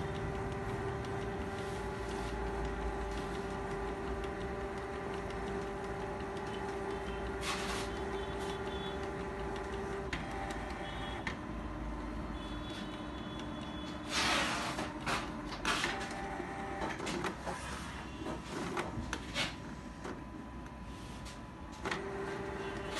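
Canon Pixma G2000 inkjet printer's mechanism running with a steady whir during a button-sequence service reset. The whir drops to a lower pitch about halfway in, and a cluster of clicks and knocks follows; the whir returns near the end.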